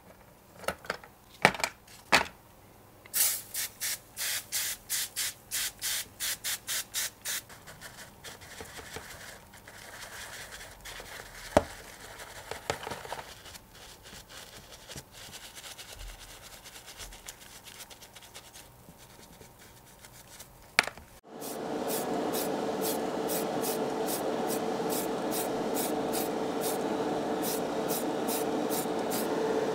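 Small metal model parts click against a plastic tray, followed by a run of rhythmic scrubbing strokes, about four a second, and softer scraping. About two-thirds of the way in, a spray booth's extractor fan starts suddenly with a steady hum, and a spray can is shaken over it in a regular rattle.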